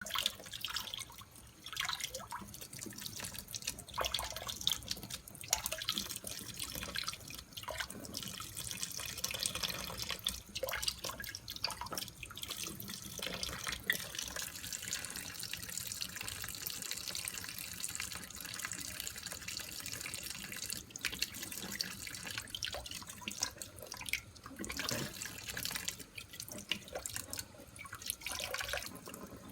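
Faucet running into a sink in a steady stream, broken by irregular splashes and drips as a cat laps and paws at the water.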